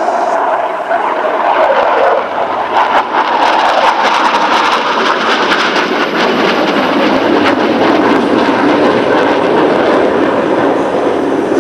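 Dassault Rafale Marine fighter's twin Snecma M88 turbofans flying past, loud and continuous. The jet noise drops in pitch as the aircraft passes, with a crackling edge in the middle, and falls again near the end.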